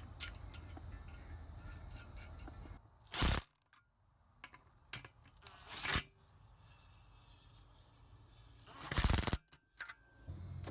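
Three short scraping noises a few seconds apart, as a plate is handled and set in place, with a low hum under the first few seconds.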